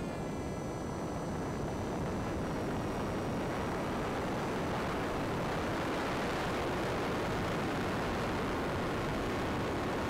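Airflow noise over a Ranger 2000 RC plane's onboard camera microphone in flight, a steady rushing hiss. A faint high whine from the plane's electric motor dies away in the first few seconds.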